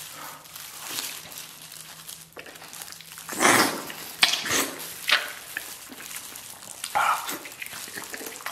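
Close-up eating sounds from a man's mouth as he bites, sucks and chews gelatinous braised beef knuckle with fat and tendon. There are several short, loud, wet smacks and sucks, a cluster of them in the middle and one more near the end.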